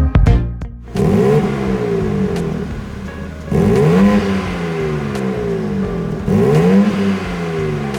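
BMW M2 G87's twin-turbo inline-six blipped three times while stationary, each rev rising quickly and falling slowly back to idle, heard through its exhaust.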